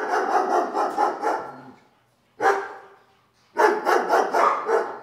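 A dog barking: a quick run of barks, one lone bark, then another quick run.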